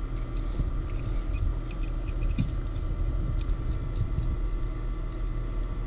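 A steady low mechanical hum, with scattered light clicks and ticks over it.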